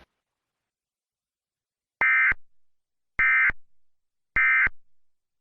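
EAS SAME end-of-message data bursts: three short, identical buzzing digital bursts about a second apart, marking the end of the emergency alert message.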